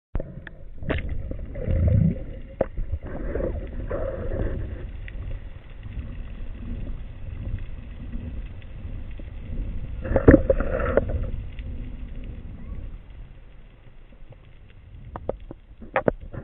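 Muffled underwater sound picked up through a camera's waterproof housing: a steady low rumble of water moving past it, with scattered clicks and knocks and a few brief louder gurgling bursts, the loudest about ten seconds in.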